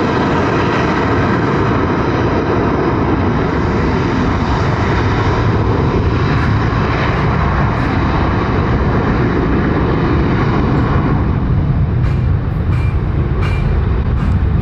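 Airbus A320's jet engines at taxi power, a steady whine over a low rumble as the airliner rolls onto the runway.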